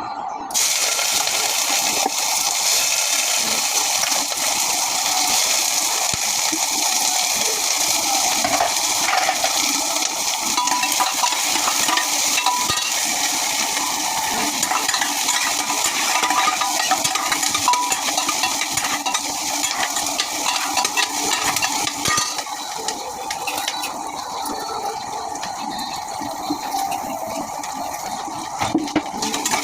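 Food sizzling in hot oil in a pan, a steady crackling hiss that starts suddenly about half a second in and eases a little after about 22 seconds.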